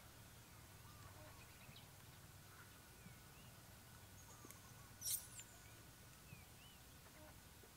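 Near silence with faint, short animal chirps and one brief, sharp squeak about five seconds in.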